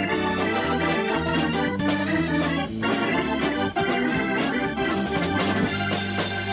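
Music led by an organ, with a steady drum beat.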